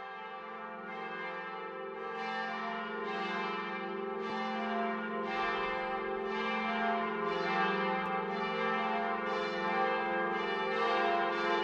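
Bells ringing in a steady peal, a new strike about every three-quarters of a second over a bed of sustained ringing tones, fading in and growing louder.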